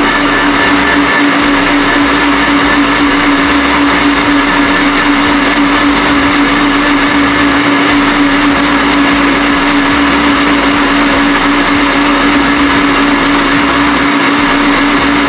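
Countertop electric blender with a plastic jar running at steady full speed, blending tomatoes into juice: a loud, even motor whine.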